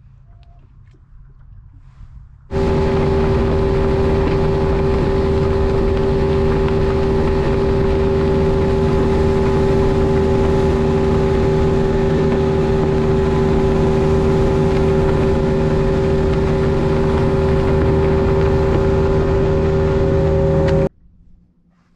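Evinrude 150 outboard motor running at a steady cruising speed, its engine note holding constant over a rush of wind and water. It cuts in abruptly a couple of seconds in and cuts off just before the end.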